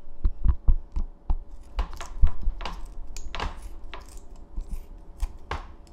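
Kitchen scissors cutting through tough, semi-dried conger eel: a series of sharp snips and clicks with dull knocks in between.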